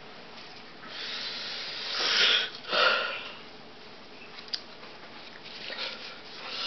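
A person breathing close to the microphone, with a few breaths or sniffs, the loudest two about two and three seconds in, and a small click a little past the middle.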